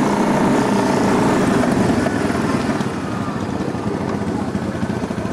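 ATV engine running under way, a steady dense rumble of fast firing pulses that eases off slightly about three seconds in.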